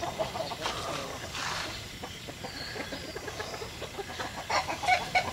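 Domestic chickens clucking, with a run of short clucks near the end.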